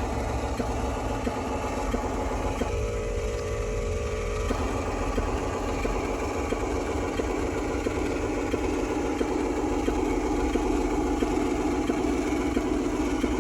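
Small electric motors and gearboxes of a radio-controlled construction model running with a steady whine. The note shifts abruptly about three and four and a half seconds in as the load or the function being worked changes.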